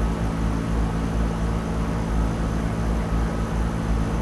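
Outdoor air-conditioner condensing unit running with a steady hum and rush of air from its condenser fan. The fan's sleeve-bearing motor, whose oil-starved bearing was cleaned of carbon for temporary use, is under load on a low ambient fan speed controller.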